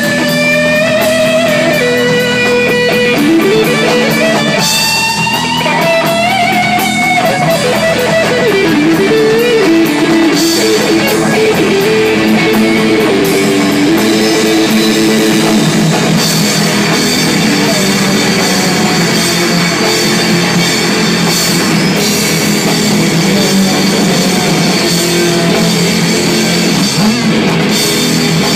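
Loud rock music with guitar and drum kit. Sliding, bending notes run through the first ten seconds or so, then the music plays on steadily.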